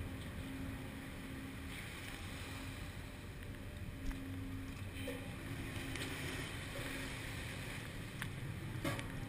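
Steady low hum of a research ship's machinery heard on open deck, with seawater rushing and swirling across the deck and wind on the microphone. A couple of sharp knocks, one about four seconds in and one near the end.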